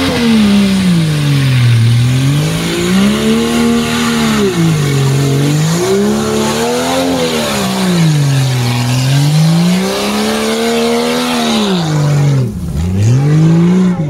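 Jeep Cherokee's engine revving hard and easing off again and again, its pitch rising and falling about every three to four seconds, as the 4x4 drives through deep mud. The pitch drops low near the end, then climbs steeply again.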